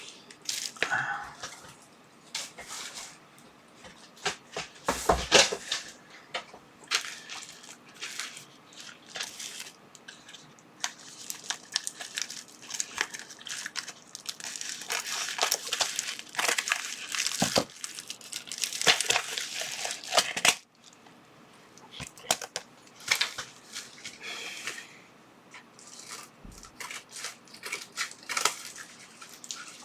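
Packaging being handled and torn open by hand, with irregular crinkling and rustling and a single knock about five seconds in.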